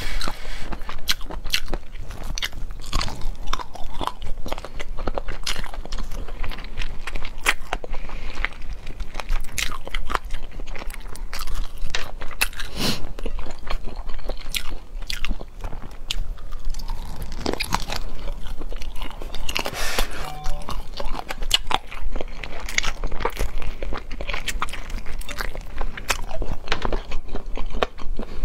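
Close-miked eating of braised chicken feet: repeated bites and chewing, with many sharp crunches and crackles from the skin and cartilage.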